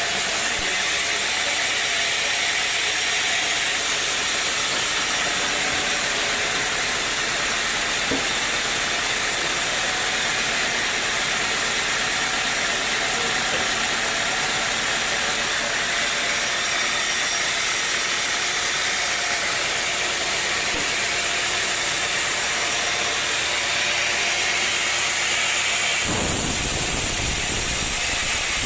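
Sawmill machinery running steadily: a continuous engine-and-saw noise with a strong hiss. A deeper rumble joins about two seconds before the end.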